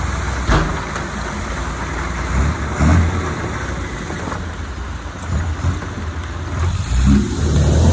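Heavy diesel earthmoving machine running at work: a steady low engine rumble with a couple of short knocks or clanks.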